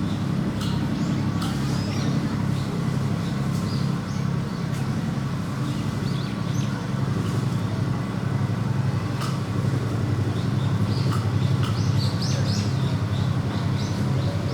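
A steady low engine drone, with birds chirping over it and a few sharp clicks.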